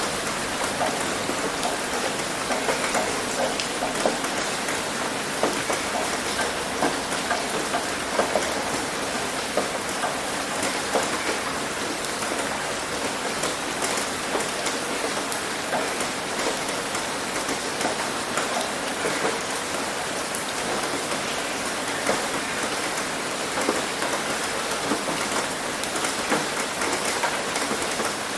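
Heavy rain hitting a roof: a steady, dense patter of drops with many small individual taps.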